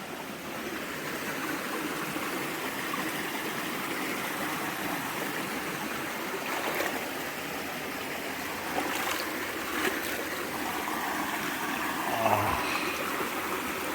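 Stream water running and trickling steadily, close by.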